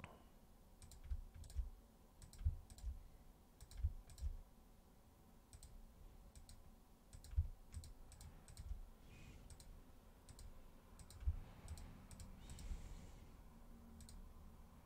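Quiet, irregular clicking of a computer mouse and keyboard at a desk, with soft low thumps between the clicks.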